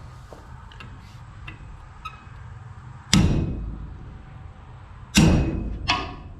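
Hammer blows driving a roll pin into a steel shaft on a corn head: a few light taps, then two heavy strikes about two seconds apart and a lighter one just after, each ringing briefly in the metal.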